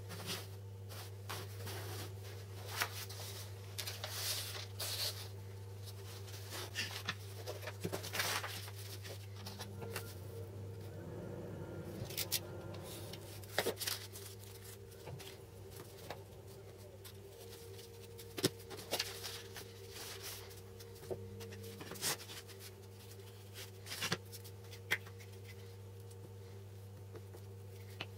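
Paper rustling and sliding on a table, with scattered light clicks and taps from small wooden and metal jig parts being handled, over a steady low hum.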